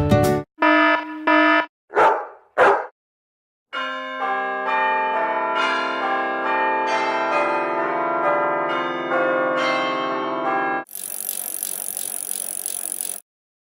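A string of sound effects: two short pitched blips and two short sharp bursts, then about seven seconds of bells ringing in overlapping, changing notes. The bells cut off into a couple of seconds of hiss.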